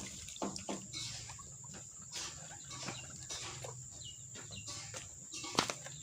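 White-breasted waterhen (ruak-ruak) calling: a quick run of repeated notes at the start, then scattered short chirps and clucks, with one sharp click near the end.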